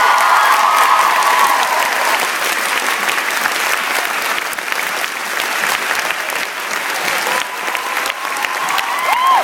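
A theatre audience applauding steadily, with whoops that rise and fall at the start and again near the end.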